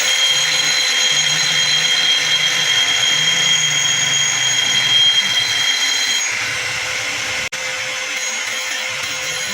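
Power grinder sharpening the steel edge of a bone cleaver: a steady grinding noise with a high whine that drops out about six seconds in, the grinding carrying on a little quieter.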